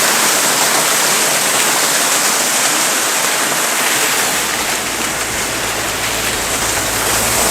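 Rushing water of a cascading mountain stream, a loud, steady roar. A low rumble joins it about halfway through.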